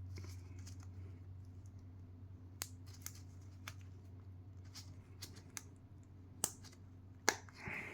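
Plastic parts of a snap-fit Primaris Reiver miniature being pressed together by hand: a scattering of small sharp clicks and pops, about seven of them, over a faint steady low hum.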